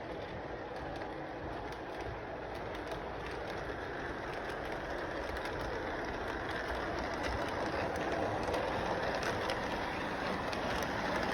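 Train running along its track, a steady rumble with faint clicking from the rails, growing gradually louder as it comes closer.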